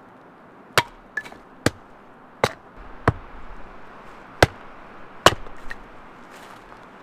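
Hatchet splitting a piece of wood set upright on a stump: about six sharp chopping blows, roughly one a second, with a few lighter knocks between them.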